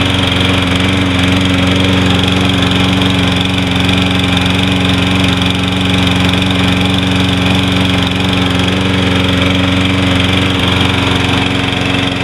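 Toro 22-inch Recycler Personal Pace lawn mower's Briggs & Stratton engine running steadily at an unchanging speed, left to run a while after a cold start.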